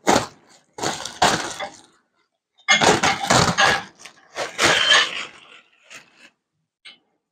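Thick clear plastic wrapping crinkling and crackling in about four loud bursts as it is pulled off a treadmill.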